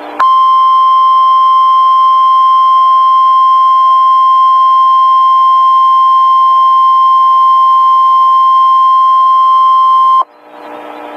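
NOAA Weather Radio warning alarm tone: a single steady high tone near 1050 Hz held for about ten seconds, cutting off sharply and leaving faint radio hiss. The tone signals that a warning broadcast is about to be read.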